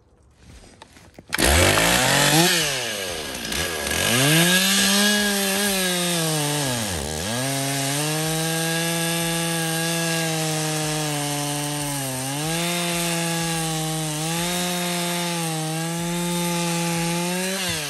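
Two-stroke gas chainsaw coming in loud about a second in, revving up and down twice and dropping almost to idle, then holding a steady high pitch under load as it cuts through a red oak log, with brief sags as the chain bites. The chain has just been freshly hand-sharpened with a round file, and this is its test cut. The engine falls away at the very end.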